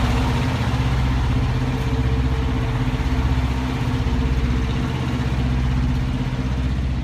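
Diesel engine of a Kenworth T660 semi-truck tractor idling steadily, with an even low pulse.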